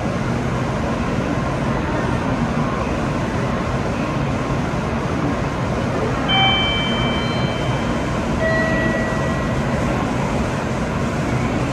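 N700-series Shinkansen running through the station at high speed: a loud rush of wheel, rail and air noise comes in suddenly and then holds steady. Two brief high whistling tones ring out about six and eight and a half seconds in.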